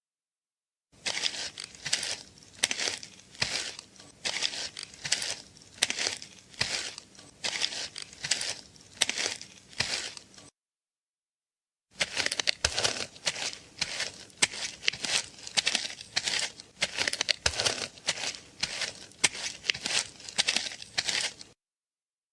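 Rhythmic crunching, rustling noise, about two bursts a second, in two long stretches broken by a sudden cut to dead silence of about a second and a half.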